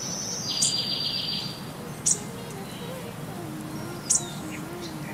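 Birds chirping: short, sharp, high calls about every second and a half, with a buzzy trill about a second in, over a steady low outdoor hum.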